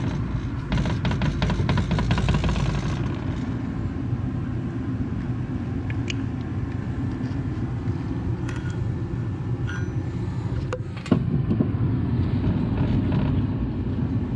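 A few light metal clicks as the planet gear bearings in a tractor's front planetary hub are oiled and turned by hand, over a steady low rumble that gets louder about eleven seconds in.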